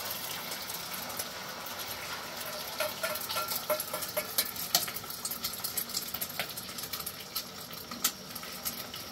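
Scattered light clicks and knocks, irregular and several a second at times, over a steady background hiss.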